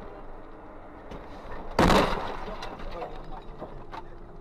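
A single loud crash about two seconds in, a vehicle collision impact, dying away over half a second against a low steady background.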